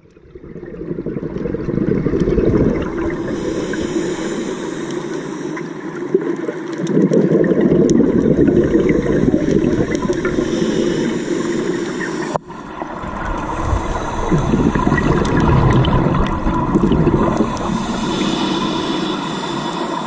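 Scuba regulator breathing underwater, heard through a GoPro's waterproof housing: exhaled bubbles rumbling and gurgling in long surges.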